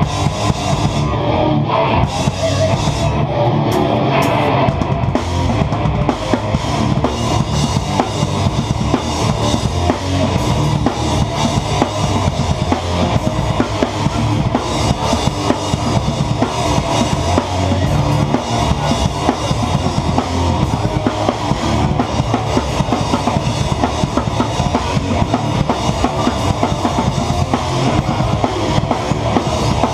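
Hardcore band playing live at full volume. The drum kit is heard close up and dominates, with fast bass drum and cymbal hits over the rest of the band.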